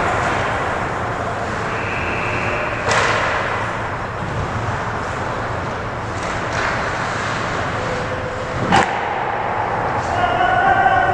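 Ice hockey game in an indoor rink: a steady wash of skating and play noise echoing around the arena, broken by two sharp hockey impacts, one about three seconds in that rings on briefly and a louder, shorter one near the end.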